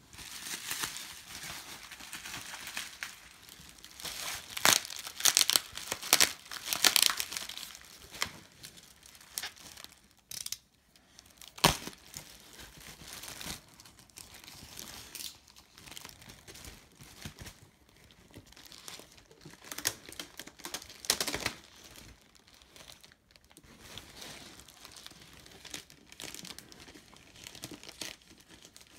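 Paperwork and packing being handled, rustled and crinkled while a cardboard shipping box is unpacked by hand, with irregular crackles and a few sharp knocks, busiest in the first several seconds.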